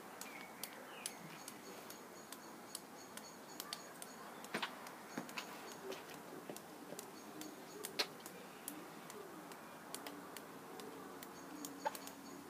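Scattered sharp ticks and clicks, with a pigeon cooing in the second half.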